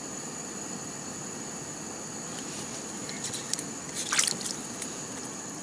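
Small wet roach being landed from an ice-fishing hole and handled: a few faint wet clicks and splashy rustles, with a short cluster of sharper clicks about four seconds in, over a steady hiss.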